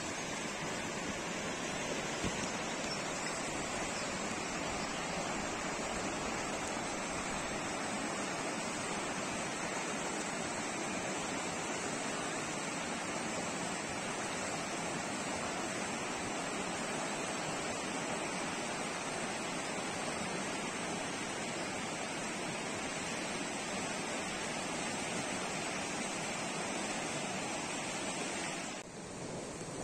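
Fast mountain stream rushing over rocks and boulders: a steady, unbroken roar of white water.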